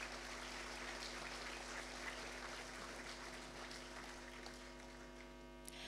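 Audience applauding, a faint, even clapping that slowly dies away toward the end, over a steady electrical hum.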